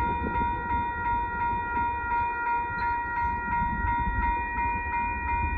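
Railroad crossing bells ringing steadily and rapidly while the gates rise after the train has cleared, cutting off near the end. A low rumble runs underneath.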